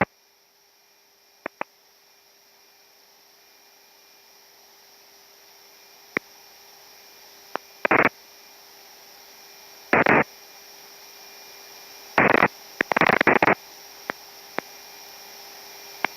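HF radio static in the aircraft's radio audio: a steady hiss that slowly grows louder, with a few sharp clicks and short bursts of garbled, noisy transmission, about one every two seconds in the second half.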